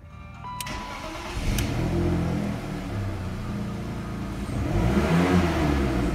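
BMW M52TU 2.0-litre inline-six engine cranked on the starter, catching about a second in with a brief flare, then idling. Near the end it is revved to about 3000 rpm and falls back toward idle.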